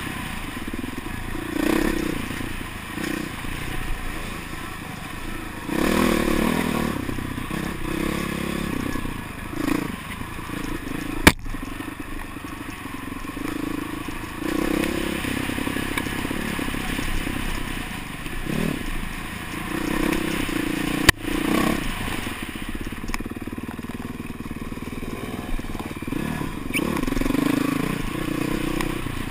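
Dirt bike engine revving up and easing off again and again with the throttle while riding a tight trail, with rattling from the bike. Two sharp knocks stand out, about eleven seconds in and again about ten seconds later.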